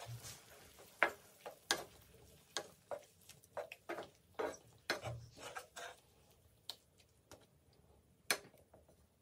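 Wooden spatula stirring chicken pieces in a creamy gravy in a frying pan, knocking and scraping on the pan: faint, irregular light taps with short pauses between.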